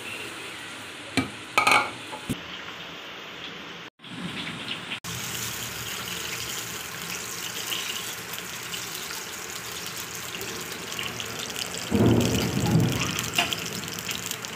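Steady hiss of melted fat heating in a small steel pan on a gas burner, with a louder rumbling handling noise near the end. A few short clicks and clatters come early.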